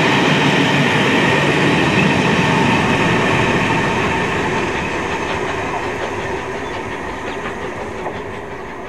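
Passenger coaches running past on the rails at about 20 mph, the wheels' noise fading steadily as the last coach goes by and the train draws away.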